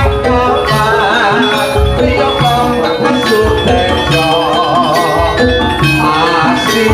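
Loud live jaranan campursari music through a sound system: struck metal keyed percussion and drums over a heavy, recurring bass beat, with a wavering lead melody line above.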